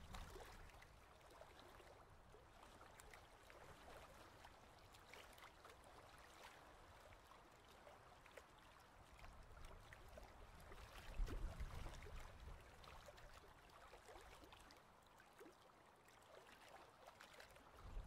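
Near silence: faint shallow-water ambience with soft trickling and scattered small ticks, and a brief low rumble about eleven seconds in.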